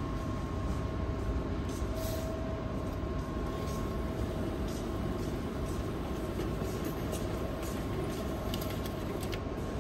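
Steady low rumble of a moving vehicle with a faint steady whine and a few light clicks.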